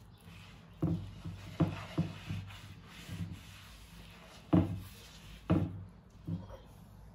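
Hands mixing and kneading sfenj dough of flour and warm water in a bowl: rubbing and squishing with about seven dull thumps at irregular intervals, the loudest about four and a half seconds in.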